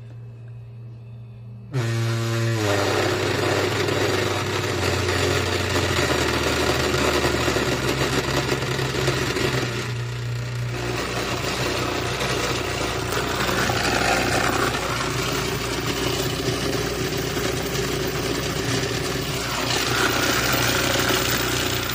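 Unmounted subwoofer driver of a Panasonic under-seat 100 W amplifier/subwoofer unit playing loud low sine-wave test tones from a signal generator. The tones jump in volume about two seconds in and then step down in pitch. A heavy buzzing rattle comes from the loose speaker shaking against its plastic enclosure.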